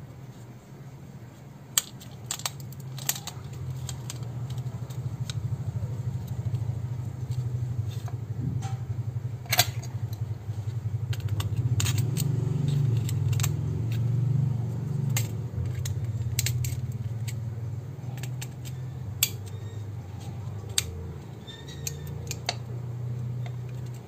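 Sharp clicks and snaps of a metal spudger prying apart a keypad mobile phone's plastic housing, scattered irregularly, with one loud snap near the middle. Underneath is a steady low hum that swells slightly around the middle.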